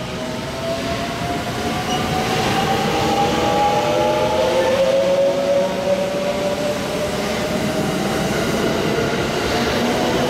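JR West 681 series electric limited express accelerating away from a station on AC power. Its traction motor whine climbs steadily in pitch, several tones rising together, over the train's running noise.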